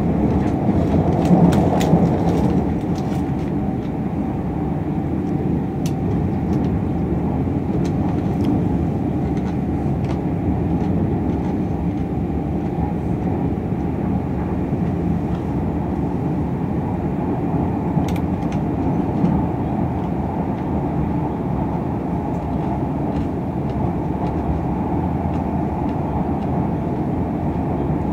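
Steady hum inside a Southeastern Class 395 Javelin electric multiple unit standing at a platform, from its onboard equipment running while stationary. A few faint clicks come in the first few seconds and once more about eighteen seconds in.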